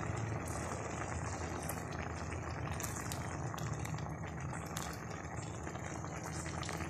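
Ginataang tulingan (bullet tuna stewed in coconut milk) boiling steadily in a large aluminium pot, a constant crackling bubble, as it finishes cooking.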